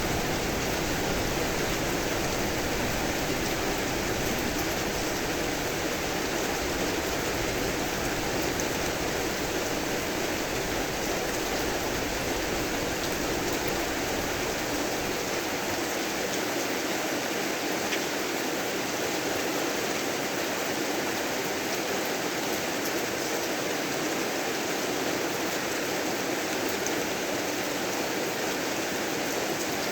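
Steady heavy rain with an even hiss. A low thunder rumble underneath fades away about halfway through.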